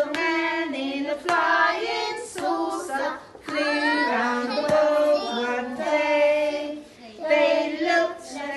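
A woman singing a nursery counting song with young children, in sung phrases with short breaths between them.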